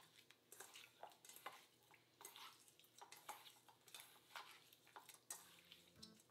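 Hands mixing raw chicken pieces in a stainless steel bowl: faint, irregular wet squishes with small taps of fingers and meat against the metal.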